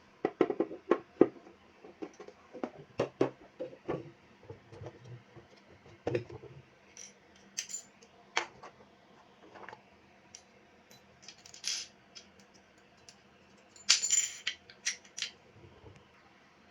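Irregular clicks, taps and knocks of standing-fan parts being handled and fitted together, with a quick cluster of sharper clicks near the end.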